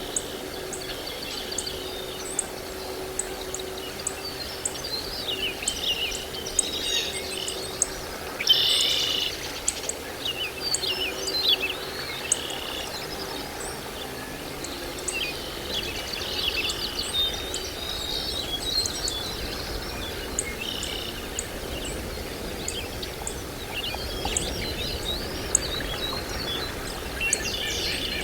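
Birds chirping and calling on and off, with a louder burst of calls about a third of the way in, over a regular high ticking about twice a second and a faint steady hum.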